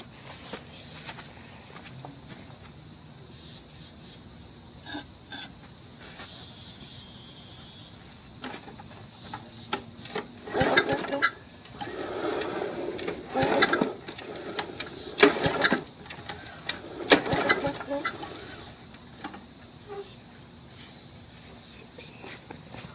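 Crickets chirping steadily. From about ten seconds in, a walk-behind mower's recoil starter is yanked several times: short rasping surges of the engine turning over without firing, after carb cleaner has been sprayed in for a test fire. A few clicks and knocks come in between.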